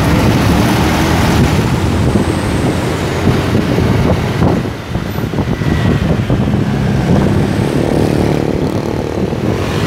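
Steady engine and wind noise from riding in road traffic on a motorcycle, with a large truck and other motorcycles close by; the noise dips briefly about halfway through.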